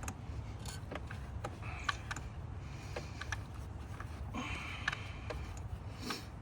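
Tools and metal parts being handled in a car's engine bay: scattered, irregular clicks and knocks over a steady low hum.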